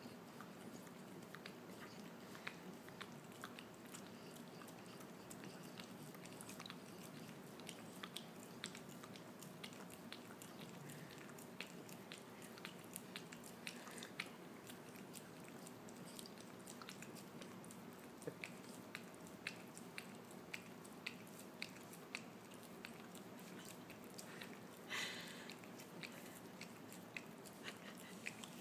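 French bulldog licking and smacking peanut butter, a long irregular run of faint wet tongue-and-lip clicks, with one brief louder noise near the end.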